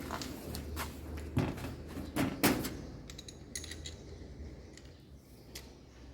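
Dryer repair parts and tools handled on the bench: a string of knocks and clicks, loudest about a second and a half to two and a half seconds in, with a brief metallic jingle a little after the middle.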